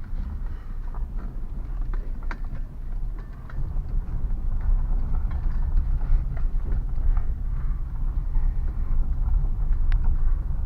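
Citroën C4 driven slowly over rough ground, heard from inside: a steady low road rumble with a few sharp, irregular knocks from the front suspension. The knock comes from a worn front ball joint with play.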